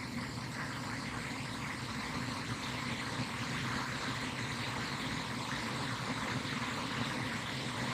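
Steady outdoor background noise: an even hum and hiss with no distinct events.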